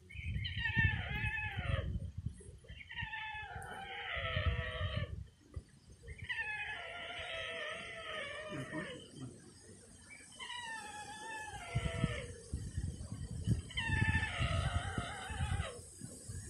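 White stork begging calls: a wavering, pitched mewing call a second or two long, repeated about every three seconds, six times.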